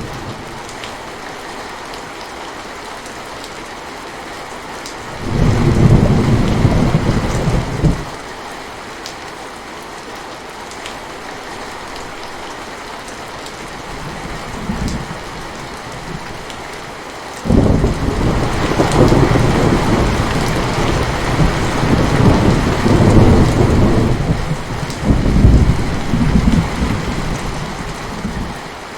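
Steady rain falling, with thunder: a rumble about five seconds in that lasts a few seconds, a faint one near the middle, and a longer rolling rumble from past the middle to near the end.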